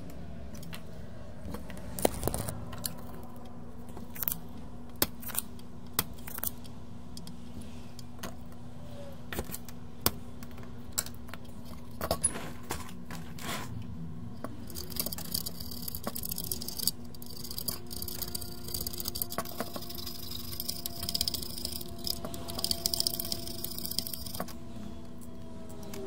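Small metal hand tools clicking and clattering on a workbench, in scattered sharp clicks with a denser run of light clinks in the second half, over a steady low hum.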